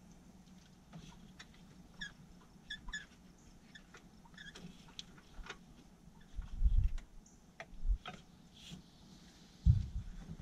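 Hands working down among the wiring of an engine bay: scattered light clicks and small rattles, with a few dull thumps, the loudest about six and a half seconds in and again near the end.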